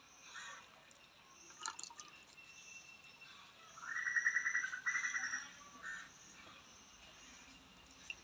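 Faint wet squelching and dripping as soaked grated potato is squeezed out by hand over a bowl of starchy water. About four seconds in, the loudest sound is a short, fast buzzing trill, twice back to back, from an unseen source.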